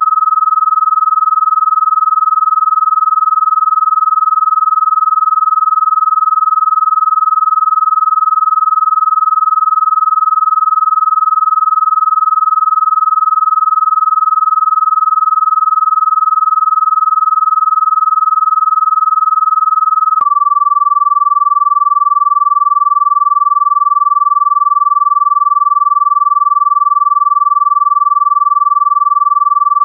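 Synthesized Rife-frequency tone: one steady, high, pure electronic tone held without a break, which steps down to a slightly lower pitch about twenty seconds in.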